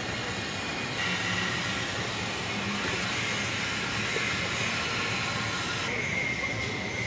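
Steady industrial shop-floor noise: an even hiss with a faint high whine. Its character changes abruptly about a second in and again near the end.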